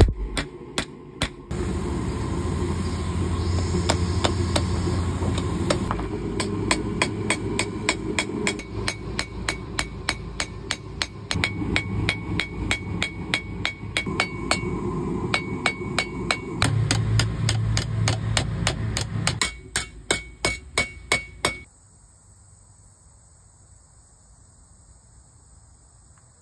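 Blacksmith's hand hammer striking hot steel from an old lawn mower blade on an anvil: a long run of quick, regular blows, each with a bright metallic ring from the anvil, over a steady low rumble. The hammering stops about 22 seconds in.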